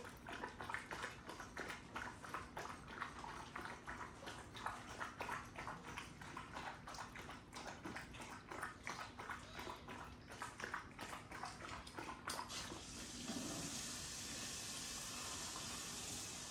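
Kangal dog lapping water from a swimming pool, about three to four laps a second. About twelve seconds in, the lapping stops and a steady hiss takes over.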